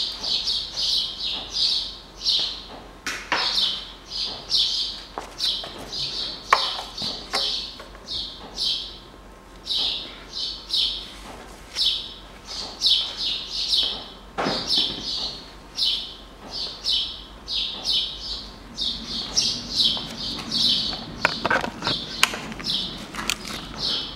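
A small bird chirping over and over in short, high chirps, about two a second, with a few sharp clicks and knocks in between.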